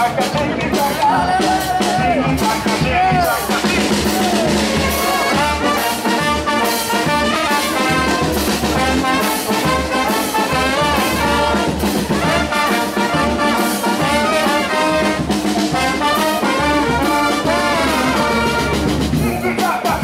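Charanga brass band playing a lively tune: trombones, trumpets and a sousaphone over a bass drum, cymbal and snare drum keeping a steady beat.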